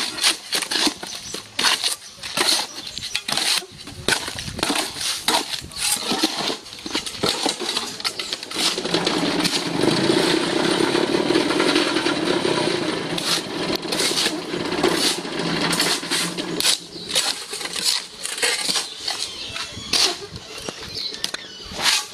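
Steel shovel scraping and scooping gritty slag-and-cement cinder-block mix out of a metal wheelbarrow and tipping it into the block mould, a run of short scrapes and crunches. From about nine seconds in, a steadier rumbling noise joins for several seconds and is the loudest part.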